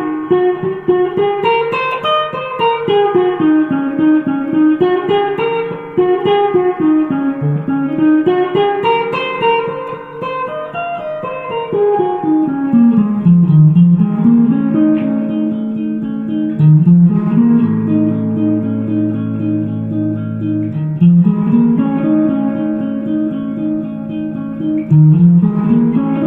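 Music: a guitar playing quick runs of single notes that climb and fall, then held notes under a repeating higher figure from about halfway through.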